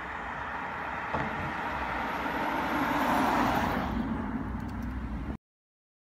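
A car driving past on the road: tyre and engine noise swelling to its loudest about three seconds in, then fading. The sound cuts off suddenly a little after five seconds.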